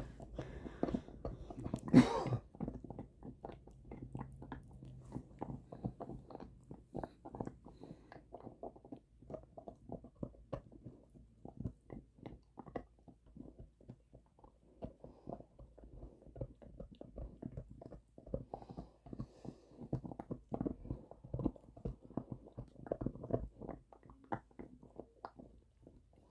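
Bernese mountain dog gnawing a bone: a long run of irregular crunching and cracking bites, with one sharper, louder crack about two seconds in.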